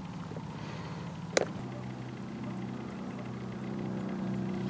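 Steady low engine hum, slowly growing louder toward the end, with a single sharp click about a second and a half in.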